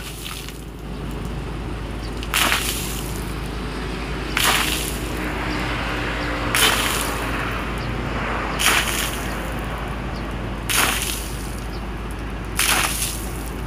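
Rainwater bailed by the scoopful from a pooled lorry tarpaulin cover, splashing as it is flung off, in short splashes about every two seconds, over a steady low hum.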